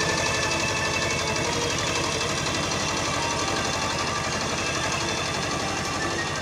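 HMT 2522 tractor's diesel engine running steadily with an even, rapid knocking beat while working a flooded paddy field.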